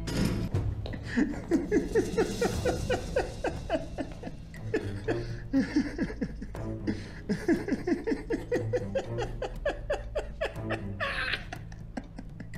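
Long, hearty laughter in quick repeated 'ha' pulses, easing off near the end, over low background music.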